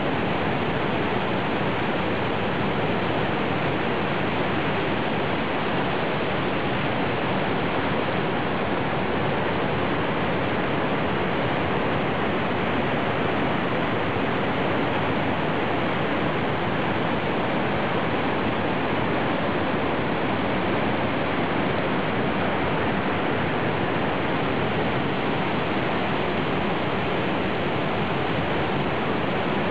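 Water pouring through the spillway gates of a hydroelectric dam and falling into the gorge below: a steady, unbroken rush of falling water.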